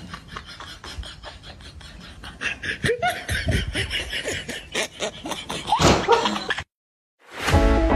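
A person laughing in quick repeated bursts, getting louder about two and a half seconds in. It cuts off, and electronic dance music starts near the end.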